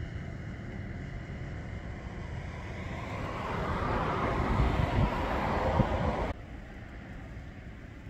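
Wind buffeting the microphone, with a rushing noise that swells for a few seconds and then cuts off abruptly about six seconds in.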